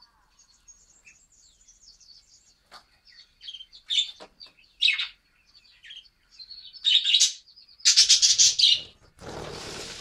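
Budgerigars chattering in a cage: a soft high warble, then several sharp chirps, the loudest about eight seconds in. A short rustling noise follows near the end.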